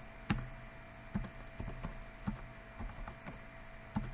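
Typing on a computer keyboard: single keystrokes at an uneven pace, about one every half second.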